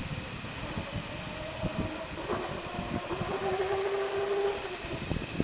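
Cardboard box rolling down a steel gravity roller conveyor: a rumbling clatter of rollers turning under it, with a humming note for a second or so midway.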